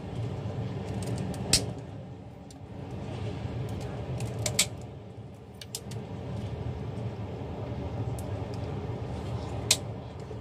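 Kitchen scissors cutting through a raw crab's shell, with a few sharp snips and cracks: one early, a quick cluster midway and one near the end. A steady low hum runs underneath.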